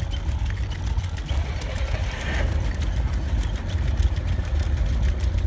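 Playa Crawler walking chair moving along, its Jansen-linkage legs giving a continuous fine clatter of small clicks over a steady low rumble.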